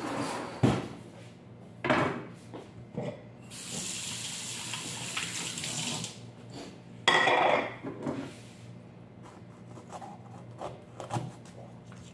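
A kitchen tap runs for about two and a half seconds, amid knocks and clatter of dishes and utensils on the counter, with one louder clatter about seven seconds in.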